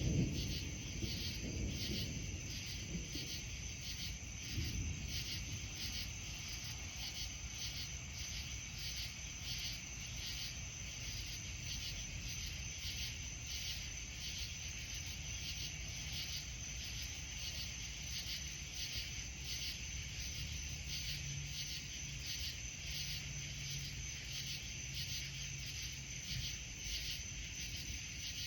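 Crickets chirping in a steady, even rhythm in the night air, with the tail of a low thunder rumble fading out over the first couple of seconds.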